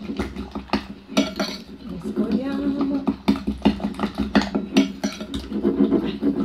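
Metal spoon clinking and scraping against a glass bowl in quick, irregular taps while stirring icing sugar into egg white to make a stiff meringue mixture.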